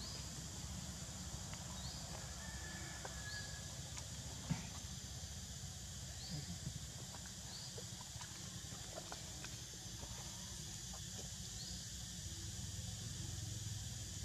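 Outdoor forest ambience: a steady high hiss and a low rumble, with a few short rising chirps and a single sharp click about four and a half seconds in.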